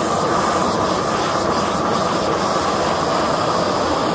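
Large hose-fed propane torch burning at full flame against cement board, a constant, even rushing noise.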